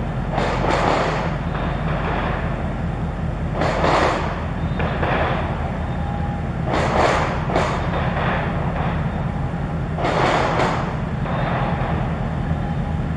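Steady low drone of ship engines from a passing large container ship and its attending harbour tug. A rushing noise swells and fades about every three seconds over the drone.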